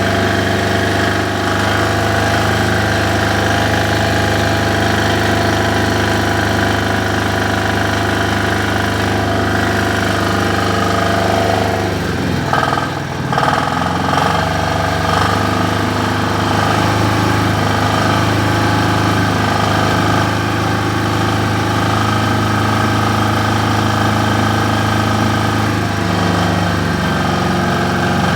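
SDG12800E diesel generator engine running steadily. About halfway through, its note falters briefly, then it settles back to an even run.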